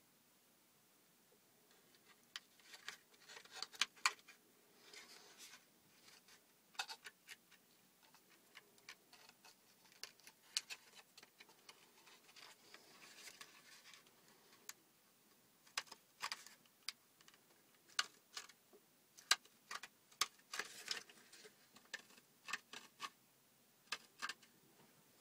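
Scattered sharp clicks and taps with short scraping rustles from a homemade cardboard toy pistol being handled.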